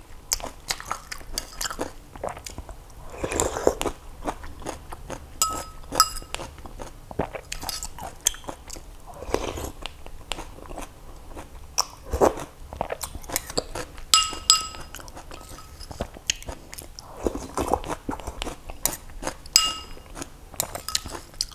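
Close-miked eating: chewing and slurping of sour soup, with a metal spoon clinking against a ceramic bowl several times with a short ringing tone.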